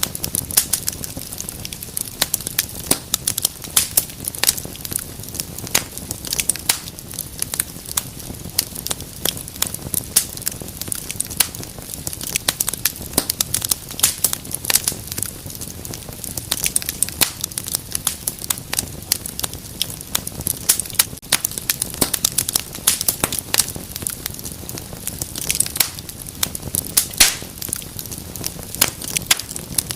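Wood fire burning in a fireplace, crackling with many sharp irregular pops over a low steady rumble of the flames.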